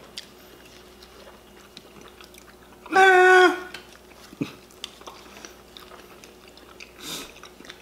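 Soft chewing and biting of burritos, with faint small mouth clicks. About three seconds in there is one short, high-pitched sound lasting about half a second.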